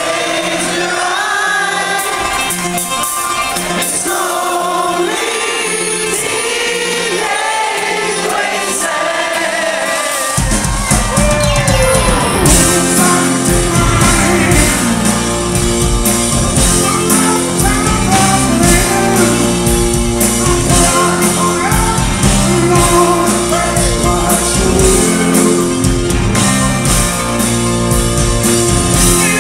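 Live rock band with a male lead singer. For the first ten seconds the voice is over a repeating keyboard pattern with little bass. About ten seconds in, bass and drums come in and the full band plays on, louder.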